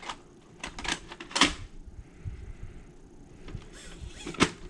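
Handling noise from a VHS camcorder and cassette: a few sharp clicks and knocks of hard plastic, the loudest about a second and a half in and another near the end.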